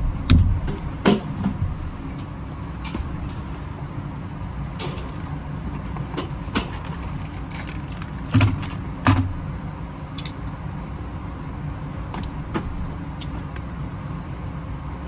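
Knocks and thumps of a rifle range bag and gear being handled on a shooting bench, with two heavier thumps a little past the middle, over a steady low rumble.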